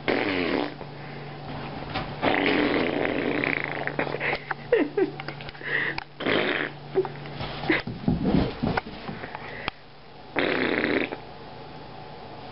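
Rough, snorting grunts from a boxer dog. They come in several noisy bursts of up to about two seconds, with pauses between.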